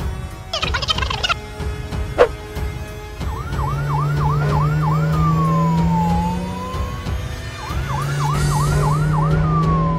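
Fire-engine siren sound effect for a toy Lego fire truck: a fast rising yelp repeated about six times, then a long wail that falls and rises again, the pattern played twice over a steady low hum. A short high trill sounds about a second in, before the siren starts.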